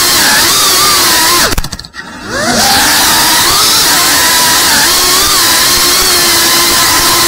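FPV quadcopter's brushless motors whining, the pitch rising and falling as the throttle is worked. About a second and a half in, the whine drops almost to nothing for about a second, then climbs back.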